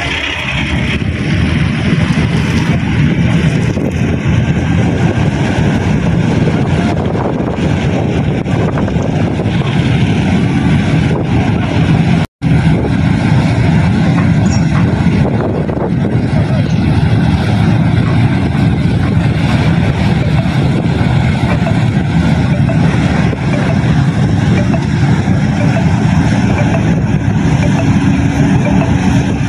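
Passenger ship KM Ciremai manoeuvring close in: a steady low rumble of its engines and propellers mixed with the rush of water churned along the hull.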